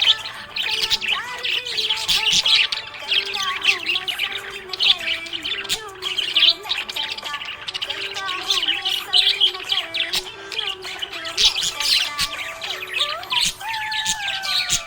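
Budgerigars chirping and warbling nonstop, a dense run of quick high chirps over wavering, gliding notes: the contented chatter of happy budgies.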